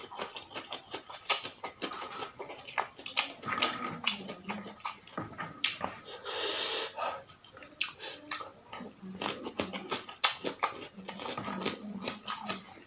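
Close-miked eating of spicy noodle soup: wet chewing, lip smacks and slurps, with a longer breathy burst about six and a half seconds in.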